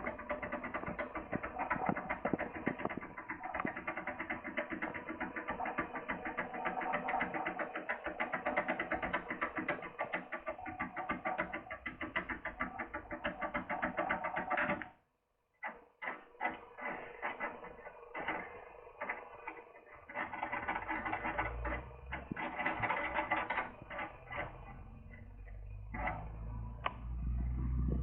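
Foil lock-opening tool being worked inside a Lince pin-tumbler cylinder lock: rapid, dense clicking and scratching as the tool is jiggled in the keyway, breaking off briefly about halfway through, then sparser clicks.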